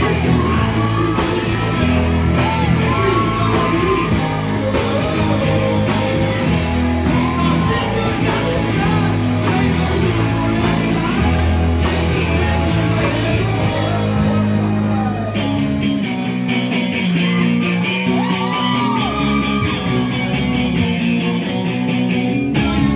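Rock music with a man singing live into a handheld microphone, amplified through a PA. About two-thirds of the way through the bass drops out for several seconds, then comes back just before the end.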